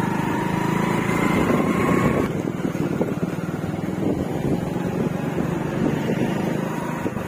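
Motor vehicle engine running steadily on the move, a continuous low hum with road noise.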